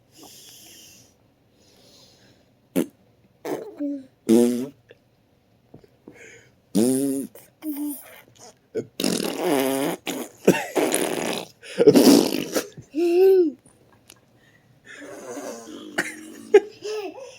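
A baby making non-word vocal noises: short pitched squeals and coos that bend up and down, with longer breathy, buzzy sounds in the middle.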